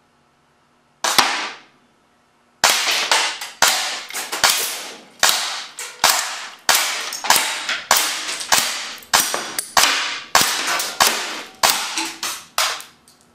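Shots from a .25-calibre semi-automatic air cannon fired by a solenoid valve, hitting a plastic toy truck: one sharp crack about a second in, then a steady string of cracks at roughly two a second that stops just before the end.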